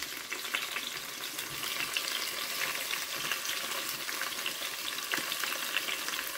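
Chicken leg quarters frying in oil in a frying pan: a steady sizzling hiss with many small crackles and pops.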